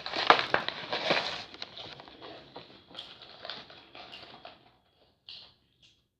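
Eating sounds close to the microphone: a loud burst of crunching and rustling for about a second and a half as the chicken sandwich is handled and bitten, then a run of smaller chewing clicks and smacks that fade out.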